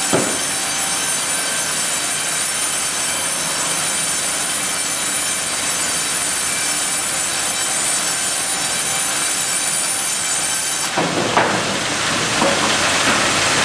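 Ustunkarli UHM 140 H vertical log bandsaw cutting along a log: a loud, steady sawing noise with a cluster of high whining tones. About eleven seconds in the whine stops, and a rougher rushing noise with a couple of knocks takes over.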